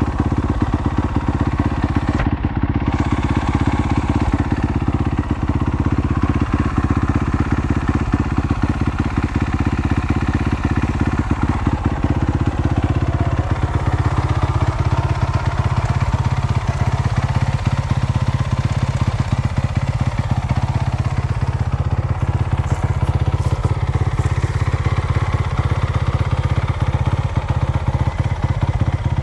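2017 Honda CRF450R's single-cylinder four-stroke engine idling steadily, with an even stream of firing pulses.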